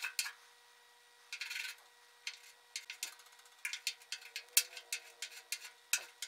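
Steck nib file scraping over cured clear coat in short, light, scratchy strokes to level a paint run: one longer stroke about a second and a half in, then a quick series of strokes in the second half.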